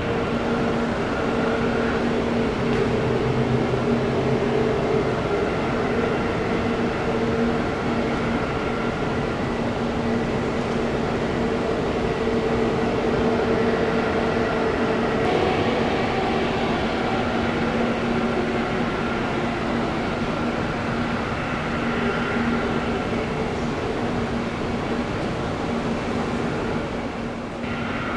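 Steady drone of airliner jet engines running at taxi idle, a constant rumbling hiss with a low hum held throughout.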